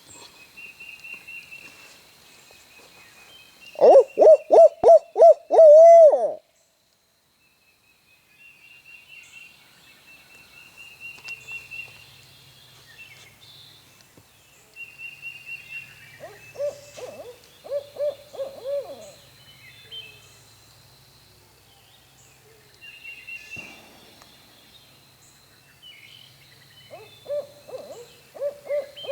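Owl hooting: a loud series of about eight hoots ending in a drawn-out note about four seconds in, then two fainter series of hoots later on. Small songbirds chirp throughout.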